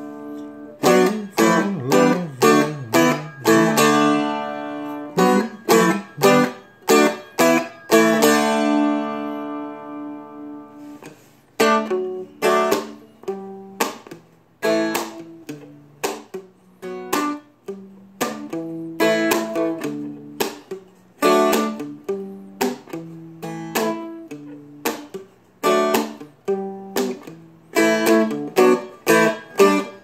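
A Seagull Merlin, a small dulcimer-style fretted instrument, strummed with a pick through a chord progression. Rhythmic chord strokes, with a chord left ringing and fading out about eight seconds in before the strumming picks up again, softer.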